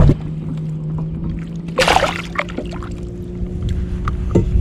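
A short splash of water about two seconds in, as the released walleye goes back into the lake, over a steady low hum.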